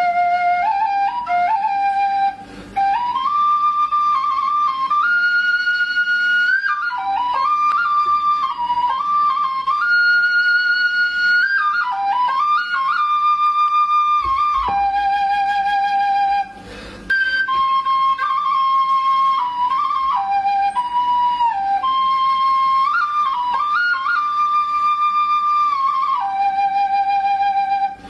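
Background music: a solo flute melody of held, wavering notes stepping up and down, broken by two brief pauses.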